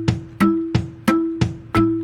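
Music with a steady percussive beat, about three sharp, pitched drum-like strikes a second.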